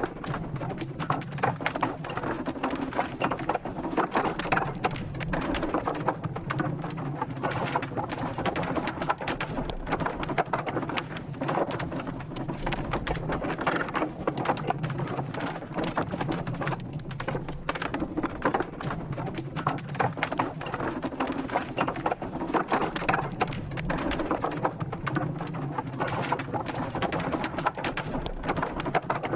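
Wooden wheel turning: a steady run of dense wooden clicks and creaks over a low rumble.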